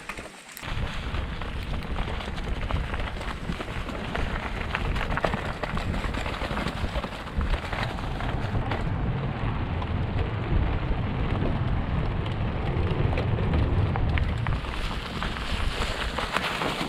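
Mountain bike riding over a rough trail, with rattling and crunching from the bike and tyres under heavy wind rumble on the camera microphone, starting about half a second in.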